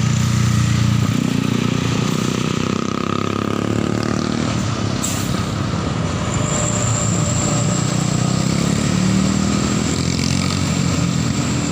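Heavy diesel bus engine running close by and passing, its engine note falling as it goes by. There is a short, high hiss about five seconds in.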